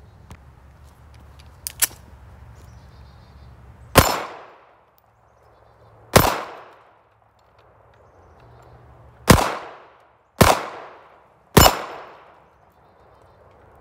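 Ruger LCP .380 ACP pocket pistol firing five single shots at uneven intervals, the first about four seconds in and the last three in quicker succession, each shot trailing off in a short echo.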